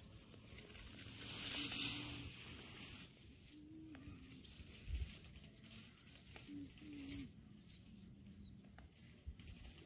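Quiet outdoor ambience. A brief rustling hiss comes about a second in, then a soft thump around the middle, with a few faint, short, low calls in the background.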